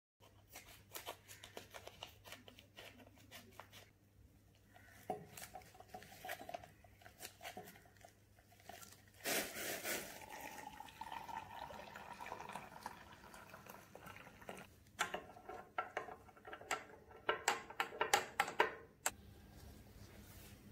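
Kitchen handling sounds: crinkling and short clicks as food and glasses are handled. About nine seconds in comes a pour of liquid from a saucepan into a glass measuring jug of jelly powder, running for a few seconds. Clusters of sharp clicks follow near the end.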